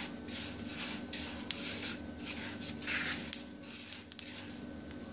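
Wooden spatula stirring white sesame seeds as they dry-roast in a nonstick pan: irregular scraping, rustling strokes of the seeds sliding over the pan, with a low steady hum underneath.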